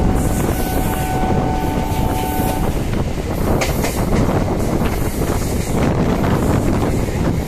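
Kolkata suburban electric local train running, a dense rumble of wheels on track. For the first two and a half seconds a steady whine of several pitches sounds over it, then stops.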